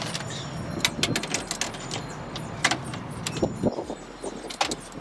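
Irregular clinks and knocks of hand tools and parts being handled while a radiator is taken out of a car's engine bay, over a low steady hum that stops a little past the middle.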